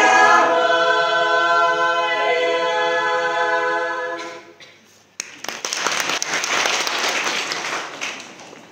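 A women's choir singing unaccompanied holds a final chord that fades out about four and a half seconds in. A moment later applause breaks out suddenly and dies away near the end.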